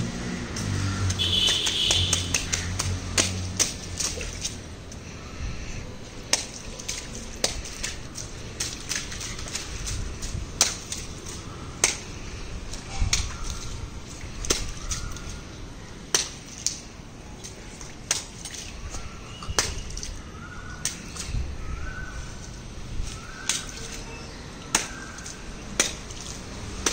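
A small child's flip-flop sandals slapping and splashing through shallow standing water on wet concrete, in irregular steps and stomps.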